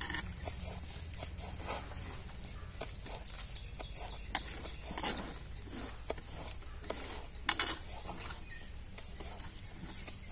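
Shredded cabbage being swept by hand off a steel plate into a steel bowl and stirred there: irregular soft rustling and patter with scattered light clicks against the metal, one sharper tick about seven seconds in.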